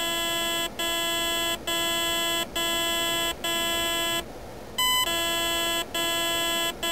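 ETTI speed controller's programming tones, sounded through the RC boat's motor: a run of low, evenly spaced tones about a second apart. They are the group of six low tones that stands for the 6S LiPo setting. A half-second pause and a short higher beep come about four and a half seconds in, then the low tones resume.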